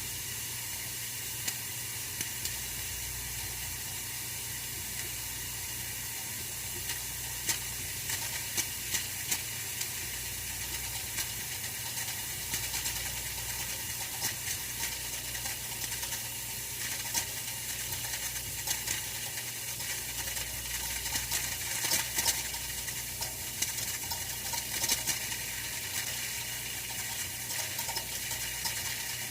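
Oil-filled radiator heater running: a steady hiss with scattered sharp ticks and crackles, which come more often in the second half.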